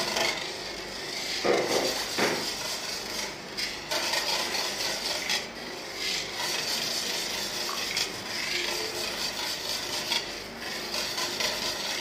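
Wire whisk stirring a thin egg, coconut milk and pandan batter in a stainless steel bowl, scraping and clinking against the metal without a break.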